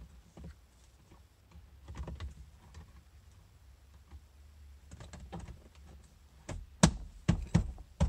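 2015 Honda Fit's plastic upper dash trim panel being handled and pressed back into the dashboard: scattered light clicks and knocks, then three sharp snaps in quick succession near the end as its clips seat.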